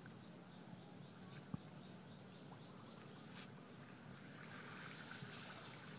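Faint, quiet outdoor ambience with a couple of small knocks; in the last second or so, a faint rising patter of water dripping and running off a cast net as it is hauled up out of the water.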